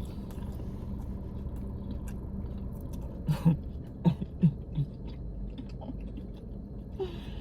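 A person biting into and chewing a crispy breaded mozzarella stick: small crunching clicks, with a few short hums from the mouth about halfway through.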